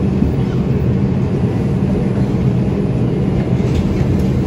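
Steady low rumble of an R142 subway train running on elevated track, heard from inside the car.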